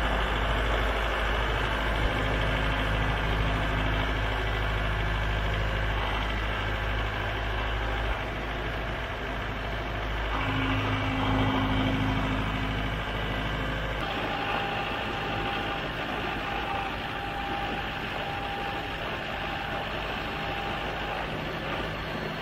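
Mahindra utility tractor's diesel engine running steadily while the front-end loader raises its bucket toward full height. A thin steady whine joins in about halfway through.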